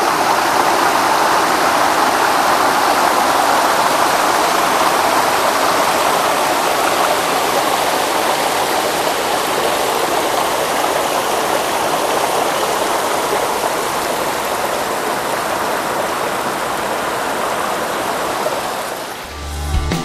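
River water rushing steadily as it spills over a low concrete weir, easing off slightly near the end.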